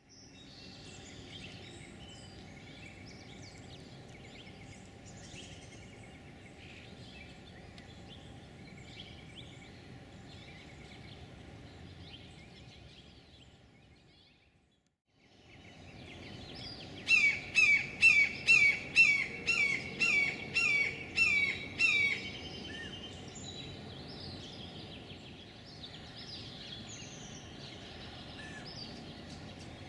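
Red-shouldered hawk calling a loud series of about ten downslurred 'kee-ah' screams, about two a second, over a background of small birds chirping.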